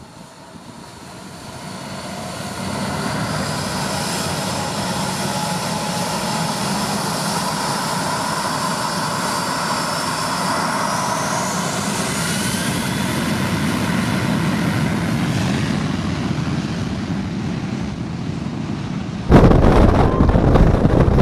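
Boeing 737's CFM56 turbofan engines running, a steady whine with several tones that grows louder as the jet taxis past, some tones gliding upward partway through. About nineteen seconds in, a sudden much louder rush begins: jet blast and wind hitting the microphone as the engines point at it at high power.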